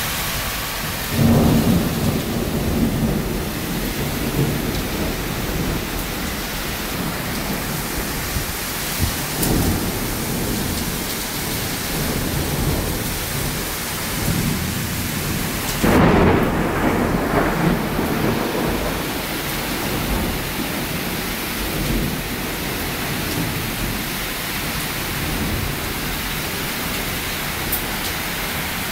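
Heavy rain pouring in a windstorm, a steady dense hiss. Two louder, deeper surges come about a second in and again about halfway through.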